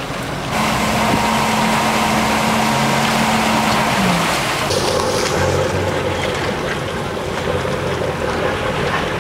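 Motorboat engine running steadily, with wind rushing on the microphone and water noise. The engine note changes abruptly twice, and briefly drops in pitch just before the second change.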